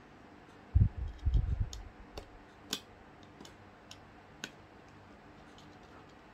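Small metal clicks and taps of screws and a precision screwdriver being handled on a laptop's internals during reassembly, with a few dull bumps about a second in.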